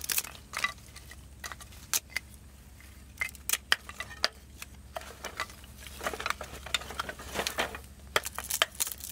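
Irregular light clicks, taps and clinks of small hard objects being handled, some close together and some a second or more apart, over a steady low hum.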